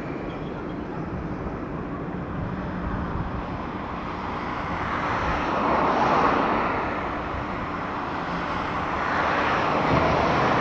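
Jet engine noise of an Airbus A330-900 under takeoff power, its Rolls-Royce Trent 7000 turbofans heard from the ground as a steady rushing roar. It swells louder about six seconds in and again near the end.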